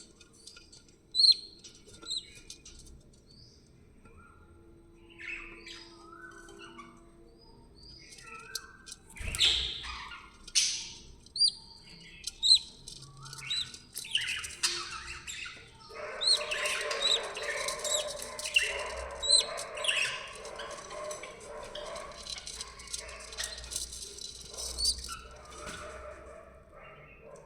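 Budgerigars chirping: scattered short chirps at first, growing into loud, dense, overlapping chattering about halfway through, then thinning out near the end.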